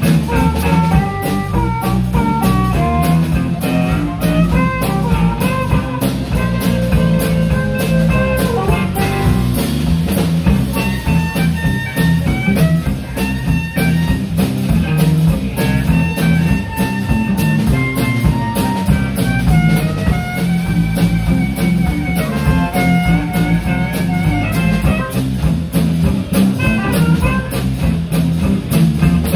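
Live blues band playing: a harmonica carries the lead over electric guitar, bass and drum kit, with a steady beat.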